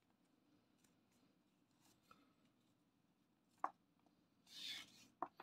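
Quiet room tone broken by hands handling a braided rope: a sharp click about three and a half seconds in, a brief rustle a second later, and another click near the end.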